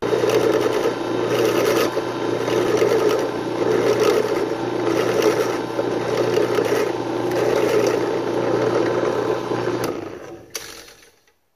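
Benchtop drill press running, its bit drilling through a kydex holster shell, the cutting noise swelling and easing about once a second over a steady motor hum. The motor is switched off near the end and winds down.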